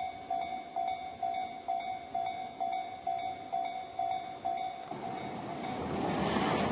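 Level-crossing warning bell ringing in a steady repeating ding, a little over two a second; about five seconds in, the noise of a Tobu Tojo Line train rises as it reaches the crossing and drowns the bell out.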